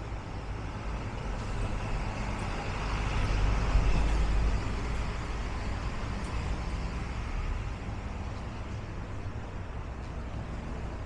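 Street traffic: a car passing close by, swelling to its loudest about four seconds in, over a steady low rumble of road noise.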